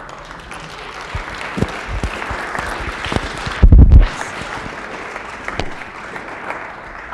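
Audience applauding, a steady patter of many hands clapping. About three and a half seconds in there is a brief, loud low thump.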